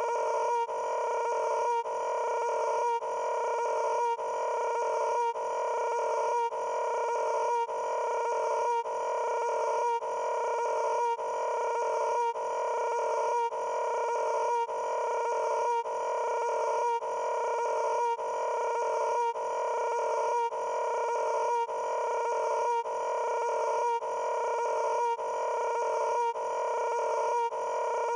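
A short pitched, tone-like sound looped over and over, repeating identically a little more than once a second.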